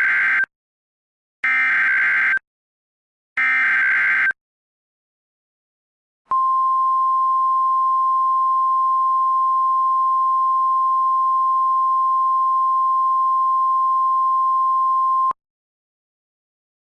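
Emergency Alert System SAME header: three one-second bursts of screeching digital data, each about two seconds apart, the first already under way. After a short gap comes the NOAA Weather Radio warning alarm, a single steady 1050 Hz tone held for about nine seconds that cuts off abruptly. Together they signal that an emergency alert message is about to be read.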